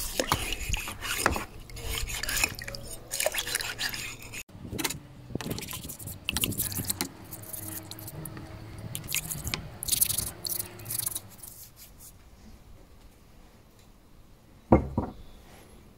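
Stiff plastic scrubbing brush scouring rusty steel scissor blades in a bucket of water: irregular scraping strokes with splashing and light metal clatter, stopping about twelve seconds in. Near the end, a single sharp knock.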